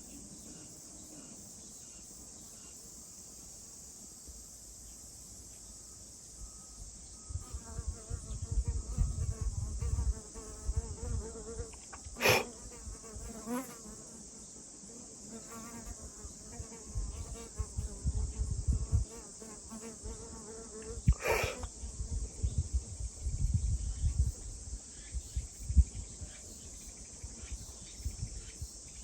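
A steady, high-pitched chorus of insects such as crickets. From about seven seconds in, a flying insect buzzes close by, its pitch wavering, with low rumbles coming and going. Two brief sharp sounds come about twelve and twenty-one seconds in.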